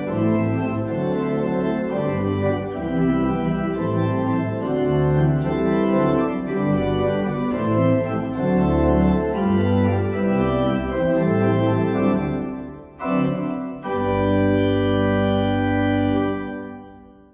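Church pipe organ playing a slow piece in full held chords over a pedal bass. It breaks off briefly about thirteen seconds in, then sounds a long final chord that dies away near the end.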